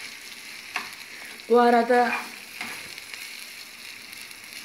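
Minced meat sizzling in a non-stick frying pan as a spoon stirs it, with a steady high sizzle and a few sharp scrapes and taps of the spoon on the pan. A short burst of voice about a second and a half in is the loudest sound.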